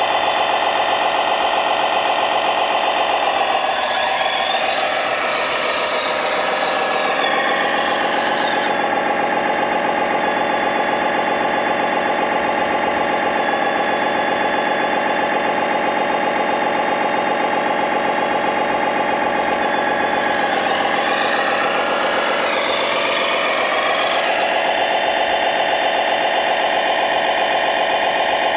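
Diesel engine sound of 1/14-scale RC construction models idling steadily. About four seconds in and again about twenty seconds in, a wavering whine and hiss rise over it for several seconds while the excavator works.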